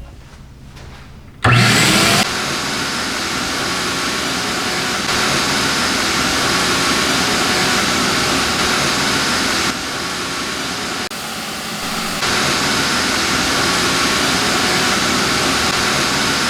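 Shop vacuum running steadily with a loud rushing noise, starting abruptly about a second and a half in. Its level steps up and down a few times.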